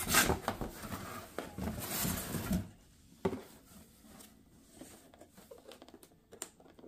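Cardboard shipping box being picked up and handled, rustling and scraping for about two and a half seconds. It ends in a single knock as it is set down, followed by faint light taps on the cardboard.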